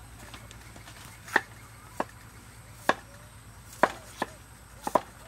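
Cleaver chopping peeled potatoes on a round wooden chopping block: about seven sharp knocks at uneven spacing, two quick double strikes near the end.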